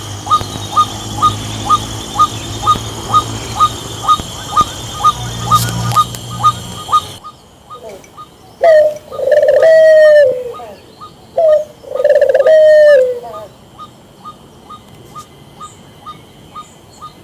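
Bird calls from two separate recordings. First, a short call repeats about twice a second over a steady background hum. After a cut, two loud, drawn-out calls fall in pitch, about three seconds apart, each led in by a few short notes.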